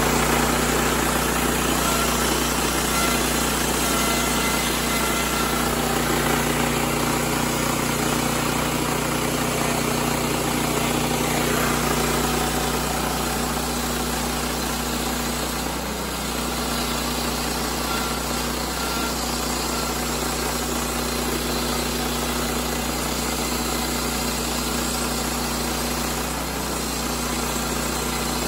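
Kohler gasoline engine of a portable bandsaw sawmill running steadily under load while the band blade saws a board from a squared cant.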